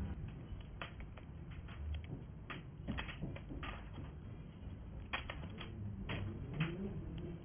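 Small laser-cut MDF kit pieces being pressed out of their sheet and set down on a table: irregular light wooden clicks and taps.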